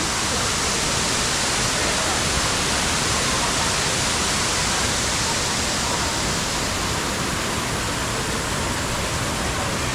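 Waterfall's water crashing down in a steady, loud, even rush.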